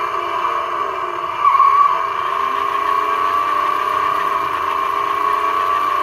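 Battery-powered toy monster truck running with its wheels spinning in place: a steady whir from its small drive motor and gears, stepping up in loudness about one and a half seconds in.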